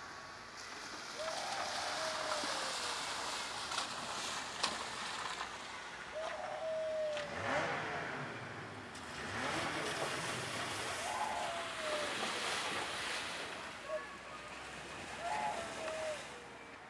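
Passing road traffic, a rushing noise that swells and fades several times, with a short call falling in pitch heard four times over it.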